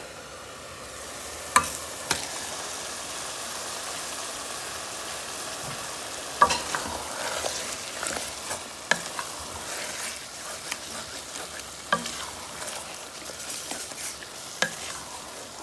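Beef chunks sizzling in hot oil with fried onion and ginger-garlic paste in a metal pot, stirred with a wooden spoon that knocks against the pot several times. The sizzle builds over the first second or two.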